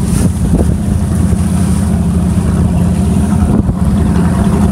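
Engine of a large cabin motorboat running as it passes close by: a steady low drone that grows slightly louder, with wind on the microphone.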